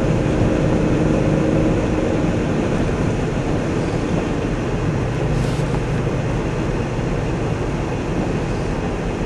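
Steady road and engine noise heard from inside a moving vehicle.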